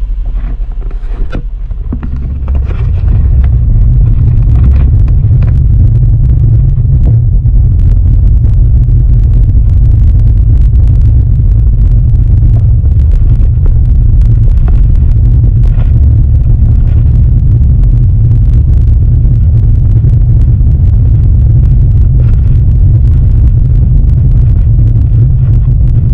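Low, steady rumble of a car driving, heard from inside the cabin, growing louder about two to three seconds in as the car gets moving on the snowy road.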